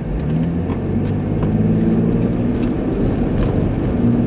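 Car engine pulling as the vehicle accelerates, its pitch rising over the first couple of seconds and then holding steady, with road rumble underneath.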